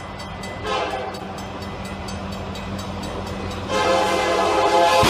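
Union Pacific diesel locomotive's air horn at a level crossing: a short blast about a second in, then a long, louder blast starting near the end, over the steady rumble of the approaching train.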